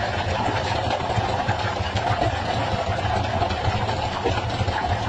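Fishing boat's engine running steadily, a continuous low drone.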